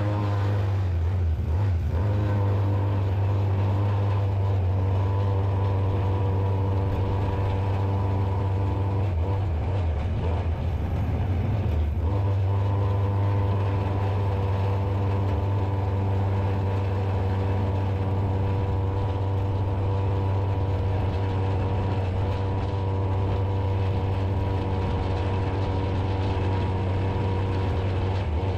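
Small two-stroke chainsaw engine with a ported muffler powering a go-kart, running at a steady part-throttle speed. The note wavers briefly about ten seconds in, then holds steady again.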